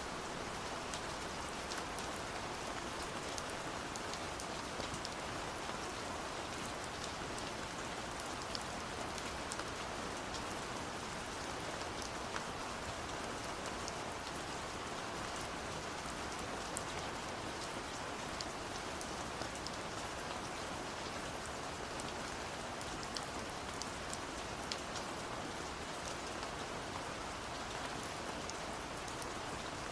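Steady gentle rain falling on a surface, an even hiss with scattered small drop ticks.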